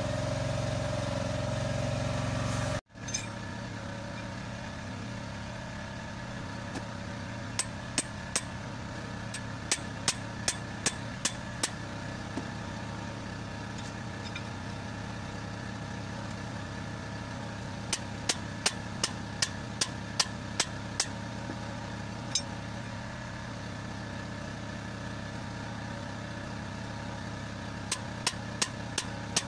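Hammer blows on metal, in quick runs of several strikes at about two to three a second, while the rubber bump stop of a Sinotruk Howo dump truck is knocked loose. A steady engine-like hum runs beneath; a louder stretch of it cuts off abruptly about three seconds in.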